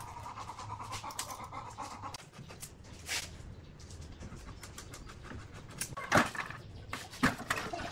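Handling of a large porcelain tile: a steel tape measure rasping along its edge, scattered clicks and scrapes, then two sharp knocks about a second apart near the end as the tile is set down on a manual tile cutter's steel frame.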